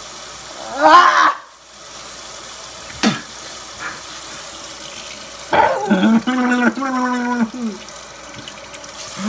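A man's pained vocal sounds while his mouth burns from a spoonful of cinnamon and chili powder: a short cry about a second in and a long, wavering moan in the second half, over a steady hiss.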